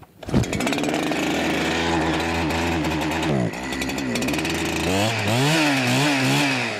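A 70cc Perla Barb two-stroke chainsaw starts up a fraction of a second in, just after firing on choke with its decompressor pressed. It runs fast at first, its pitch dips briefly about three and a half seconds in, then it idles with a wavering, uneven pitch.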